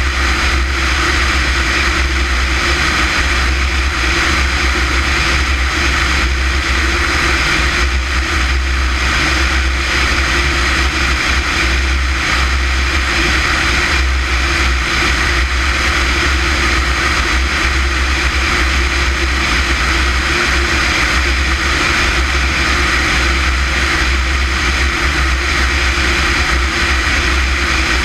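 Light propeller airplane in steady level flight: an unbroken engine-and-propeller drone with rushing air noise over it.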